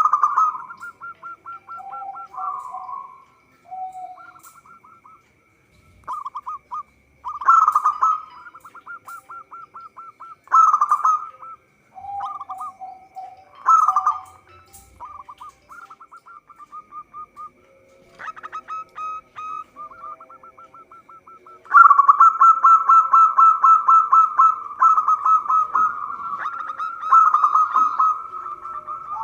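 Zebra dove cooing: trains of rapid staccato notes in short bursts, which become loud and continuous about two-thirds of the way through.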